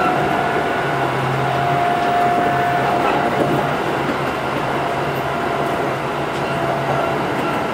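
Kintetsu 8810 series electric train running between stations, heard from inside the car: a steady rumble of wheels on the rails with a faint steady hum.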